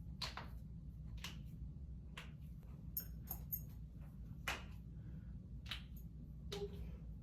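A series of sharp clicks and knocks at irregular spacing, roughly one a second, over a low steady hum.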